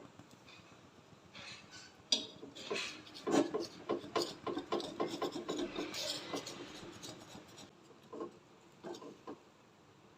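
Kitchen utensil scraping and knocking against a bowl or pan in irregular, uneven strokes, as in stirring or mixing. The strokes are densest in the middle and thin out to a few separate clicks near the end.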